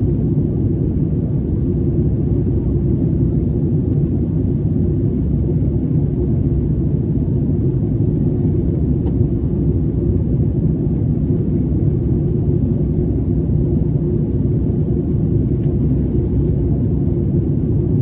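Steady low rumble of a jet airliner's engines and rushing air heard inside the passenger cabin while climbing after takeoff.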